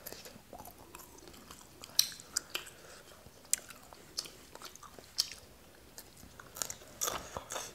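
People chewing and biting on strips of roasted beef, close to the microphone: irregular short, crisp mouth clicks and bites.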